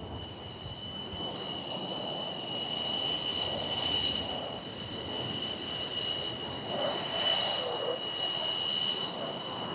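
Formation of MiG-29 jet fighters flying over, a steady high whine from their twin Klimov turbofan engines over a rushing jet noise that grows gradually louder.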